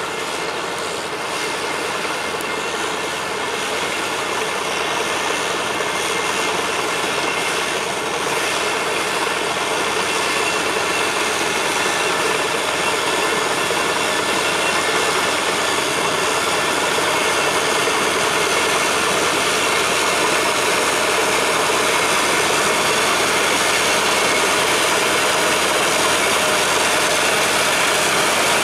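Crawler tractor's diesel engine running steadily, growing gradually louder.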